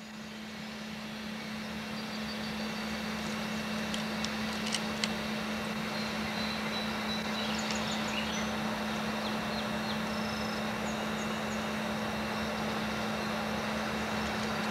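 GE Super 7 B23-7R diesel locomotives leading a coal train, their engines running steadily and growing louder as they approach. A few faint high squeaks come through about four and eight seconds in.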